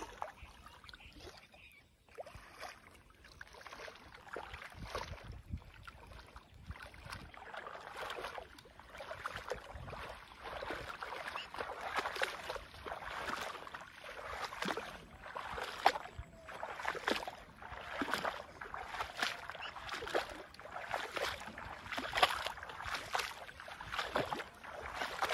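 Water splashing and sloshing in irregular strokes, faint at first and busier from about ten seconds in.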